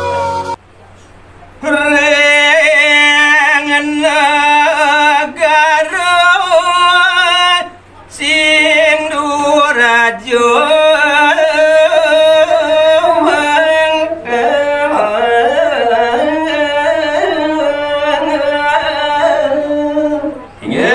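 A solo man sings a Balinese pupuh Sinom verse (tembang) without accompaniment, in long, wavering, ornamented phrases with short breaths between them. A flute note dies away in the first second.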